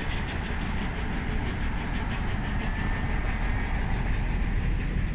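Diesel locomotive on the rear of a passing train of coaches, its engine running with a steady low rumble along with the train's running noise on the rails.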